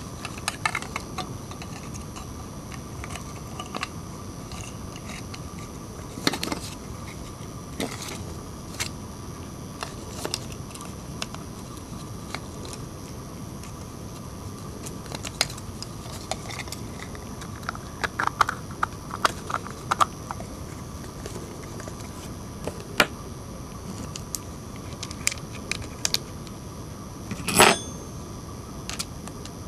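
Small plastic clicks, taps and rattles from handling a mobile phone charger's plastic case and circuit board as they are fitted and pressed together, with a quick run of clicks about two-thirds of the way in and one louder click near the end. A steady hiss with a faint whine runs under it.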